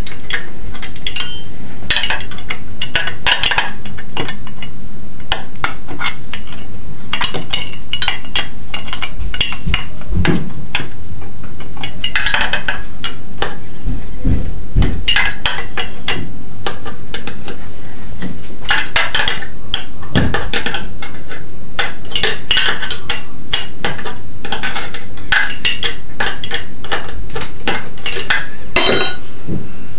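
Hand tools and metal engine parts clinking and clicking in irregular bursts of small sharp knocks, some briefly ringing, with a few duller thuds, as the muffler and heat shield are worked off a small snowmobile engine during teardown.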